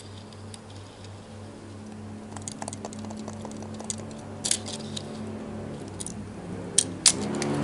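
Light clicks and taps of a die-cast Tomica Honda City Turbo II model car being handled and turned on a table, scattered from a couple of seconds in, with two sharper clicks near the end, over background music.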